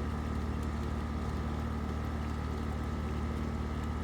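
Steady low mechanical hum with a few faint constant higher tones, unchanging throughout.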